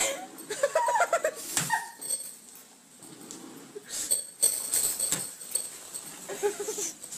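A pet animal making short whining calls, a run of them about half a second in and another near the end, with several sharp knocks and bumps in between.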